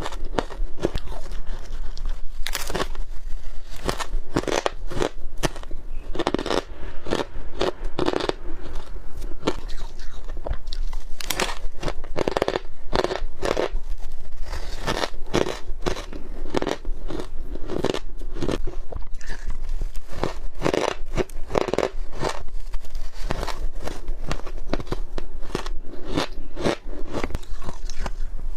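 Close-miked biting and chewing of soft freezer frost and shaved ice, with a continuous run of crunches and squeaky crackles, several a second.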